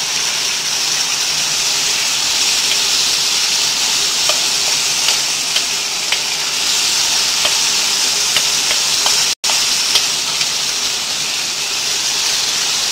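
Chicken strips and carrot sticks sizzling steadily in a frying pan as they are stir-fried with a wooden spatula, which scrapes and taps the pan now and then. The sound cuts out for an instant about nine seconds in.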